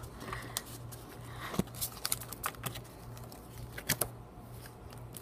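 Scattered light clicks and taps of Pokémon trading cards and booster-pack packaging being handled and set down, about half a dozen sharp ones, over a steady low hum.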